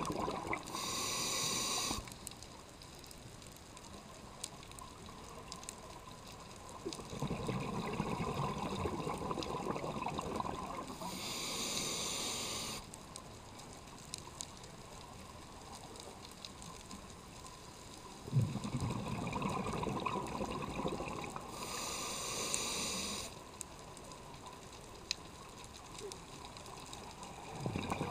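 A scuba diver breathing through a regulator underwater: a short hissing inhale through the demand valve, then a longer burble of exhaled bubbles, in slow cycles about ten seconds apart, three inhales in all.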